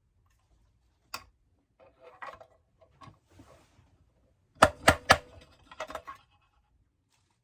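Small metal tools clicking and scraping on a clock movement plate, then three sharp metallic taps in quick succession about four and a half seconds in, and a few softer knocks. These are the new bushings being worked flush against the bushing tool's anvil.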